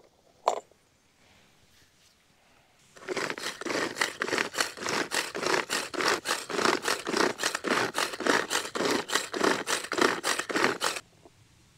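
Hand-cranked plastic bait grinder being turned briskly, its blades mashing white maggots into bait mush: a rapid, rhythmic scraping that starts about three seconds in and stops abruptly near the end. A single sharp click comes about half a second in.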